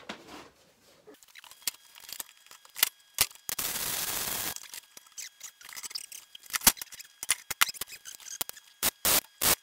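Welder tack-welding a steel bar in place: a short steady hiss about three and a half seconds in, then a run of irregular crackles and pops.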